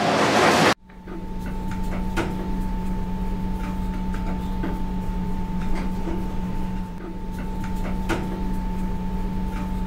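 Steady hum of factory machinery, a low drone with a fainter high tone above it, with scattered light clicks and knocks. A loud hissing noise cuts off abruptly under a second in, before the hum sets in.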